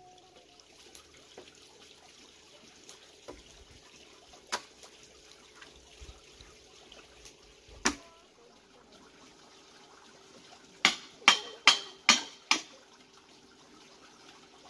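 A machete chopping a bamboo pole: five quick, sharp strikes about three a second, with a couple of lighter knocks earlier.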